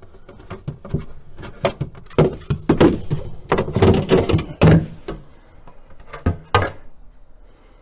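Plastic back panel inside a fridge's freezer compartment being pried and tugged against its retaining clips: a string of knocks, clicks and plastic rattles, busiest in the middle, with fewer knocks near the end.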